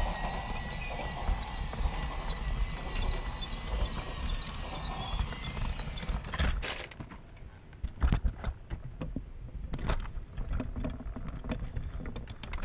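EZTEC battery-powered toy train locomotive running along its track, a steady motor whir with a faint high whine. The running stops about six and a half seconds in, followed by scattered knocks and clatter.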